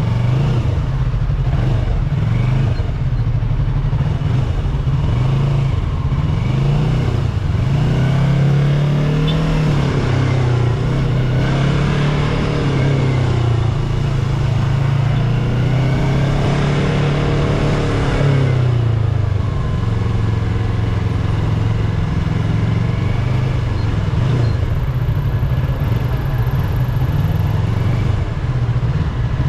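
Yamaha YZF-R3's 321 cc parallel-twin engine on its stock exhaust, riding in traffic, its revs rising and falling as the bike speeds up and slows. Other vehicles' engines can be heard around it, most clearly in the middle stretch. It is picked up by a phone's earphone microphone.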